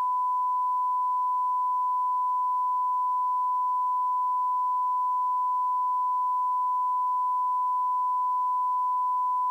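Steady 1 kHz reference tone, the test tone that accompanies SMPTE colour bars, held as one unbroken pitch.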